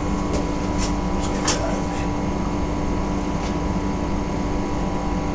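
Steady electrical and ventilation hum of a tram's driver's cab with the power on and the tram standing still, a constant low tone running through it. A few light clicks come in the first second and a half.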